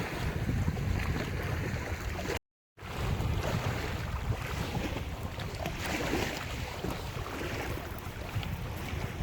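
Lake surf breaking and washing on the shore, with wind buffeting the microphone. The sound drops out completely for a fraction of a second about two and a half seconds in, then resumes.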